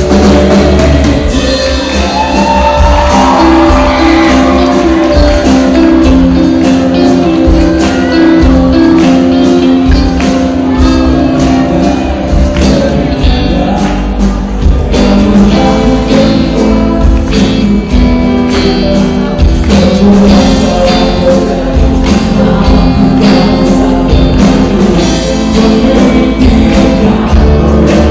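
Live band playing loudly through a PA, with singing over electric bass, electric guitar and drum kit.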